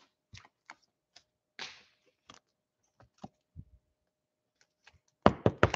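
Trading cards and packaging being handled on a tabletop: scattered light clicks and taps, then a quick run of about five sharp, louder clicks near the end.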